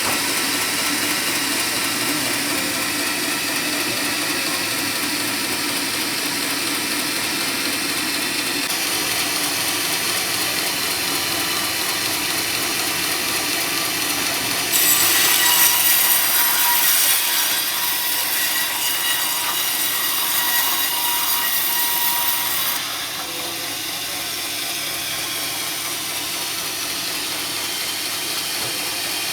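Sawmill saw cutting a teak log. It runs steadily, with a louder, harsher stretch of about eight seconds near the middle.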